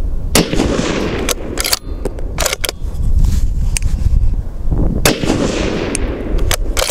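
Ruger Precision Rifle in 6.5 Creedmoor fired twice, about five seconds apart, each shot trailing off in a rolling echo. Short sharp metallic clicks come between the shots as the bolt is cycled to chamber the next round from the magazine.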